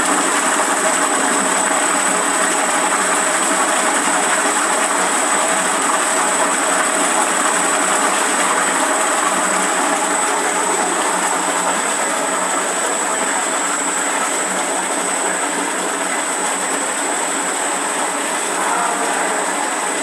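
Electric agitator motor on a liquid detergent mixing tank running steadily and stirring the liquid, a dense even machine noise with a thin, steady high whine on top; it eases slightly about halfway through.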